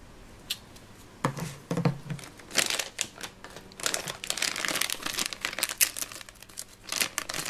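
Two soft knocks about a second in, then a clear plastic bag of small toy parts crinkling as it is handled.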